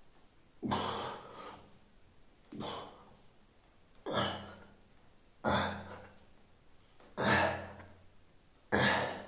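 Heavy breathing during push-ups: a forceful breath out with each rep, six in all, about one every second and a half, each starting sharply and fading quickly.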